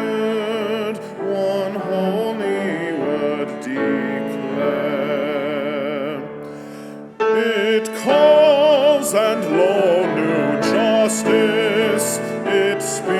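Congregation singing a hymn behind a songleader, accompanied by piano and cello. The music softens for a couple of seconds in the middle, then the singing comes back in full about seven seconds in.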